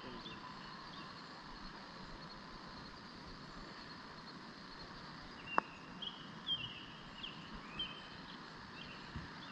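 A putter striking a golf ball once, a single sharp click about halfway through, over quiet outdoor ambience. A bird chirps a string of short high notes just after it.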